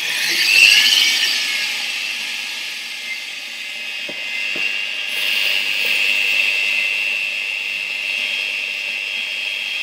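Planetary stand mixer running, its whisk beating egg whites and hot sugar syrup into Italian meringue: a steady high motor whine with whisking hiss, loudest about half a second in.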